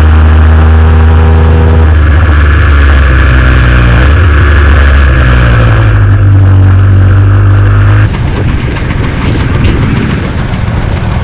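Vespa 125 cc two-stroke single-cylinder engine and exhaust running at steady revs, the pitch stepping slightly a couple of times. About eight seconds in, the steady tone breaks off abruptly into a rougher, noisier sound.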